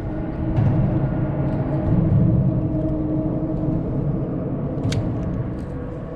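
Steady low rumble of road traffic crossing the bridge overhead, swelling once or twice, with one sharp click about five seconds in.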